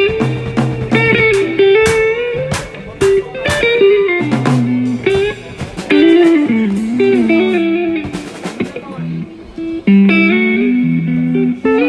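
Guitar playing a single-note melody, each note plucked with a sharp attack and some notes sliding or bending in pitch.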